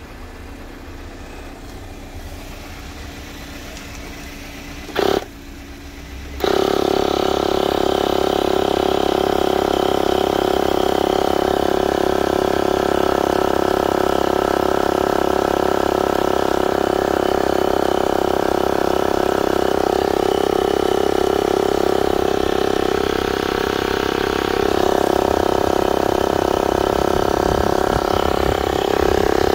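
Wheeler portable tyre inflator's electric air compressor starting up about six seconds in and then running steadily with an even hum. There is one short loud sound just before it starts.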